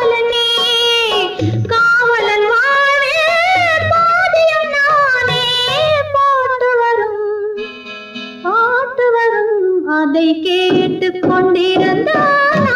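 Old Tamil film song: a female voice sings a long, gliding, ornamented melody without transcribed words over soft drum beats. About eight seconds in the voice drops out for a brief held instrumental chord, then the singing resumes.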